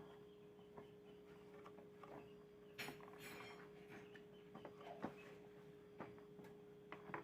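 Faint steady hum of an electric fan's motor running, with a few light clicks and a short rustle about three seconds in.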